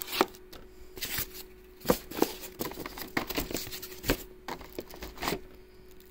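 Board game box contents being handled: plastic packaging and shrink-wrapped card decks crinkling and rustling, with scattered light taps and clicks, a few of them sharper.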